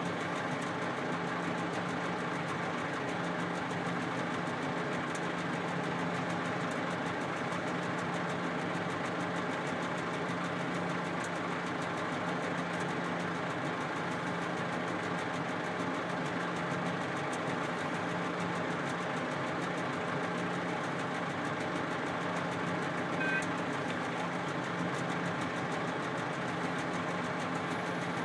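Diesel engine of a Volvo A30C articulated dump truck idling steadily, heard from inside its cab as an even hum.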